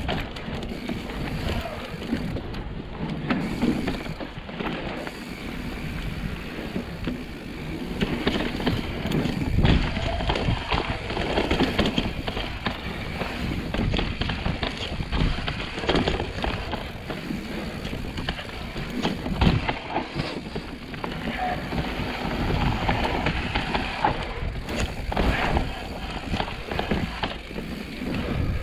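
Mountain bike ridden along a dirt singletrack: tyres rolling over dirt and roots, with the bike knocking and rattling over bumps, and wind rumbling on the camera microphone.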